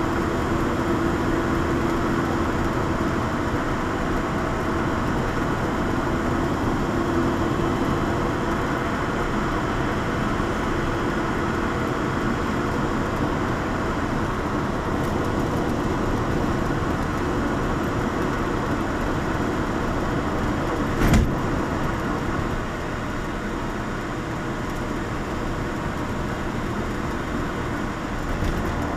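Lotus Elise's mid-mounted four-cylinder engine and tyre noise heard from inside the cabin while cruising, a steady engine note over road rumble. About two-thirds of the way through there is a single sharp thump, and soon after the overall sound drops slightly.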